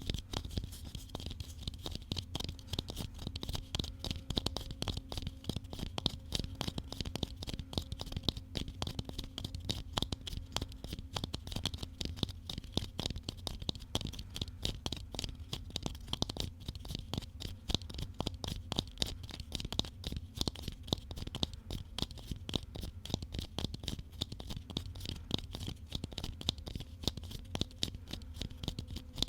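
Rapid ASMR tapping: a fast, continuous run of short taps, many a second, with a scratchy edge.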